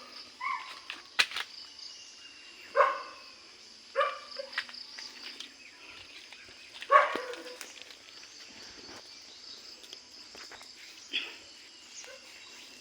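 A dog barking, about five single barks spaced a few seconds apart, the loudest about seven seconds in, over a steady high-pitched drone of insects.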